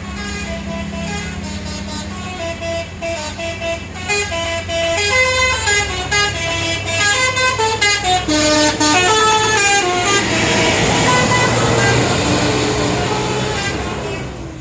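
Bus 'telolet' horn, a multi-note musical horn playing a quick, stepping melody, growing louder about four seconds in, over the bus engine running underneath.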